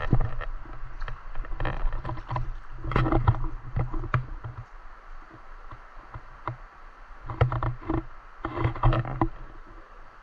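River water sloshing and splashing against the rocks in irregular bursts, loudest about 3 s in and again near the end, with a low rumble of wind on the microphone.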